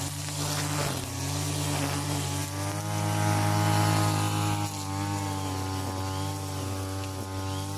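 Brush cutter spinning nylon trimmer line, running steadily at high speed. Its pitch dips briefly several times, more often near the end, as the line meets grass.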